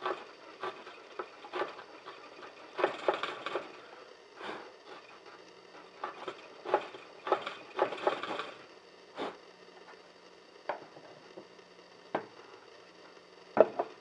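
Hand woodworking on boards: irregular wooden knocks and taps, with a few short clusters of rough strokes a few seconds in and again in the middle, and one sharp knock near the end.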